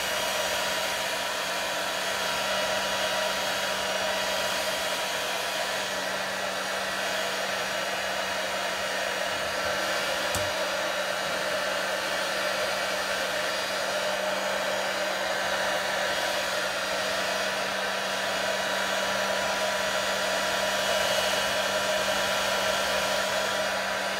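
Hand-held hair dryer blowing steadily with an even motor hum, drying a wet dog's coat.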